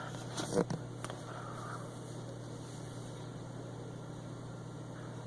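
Steady low hum with a faint even hiss, with a couple of brief faint sounds in the first second.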